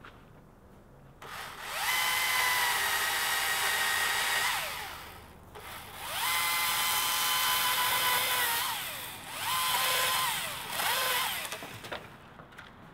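Husqvarna T535i battery chainsaw's electric motor whining up to speed and winding down four times: two runs of about three seconds each, then two short blips near the end.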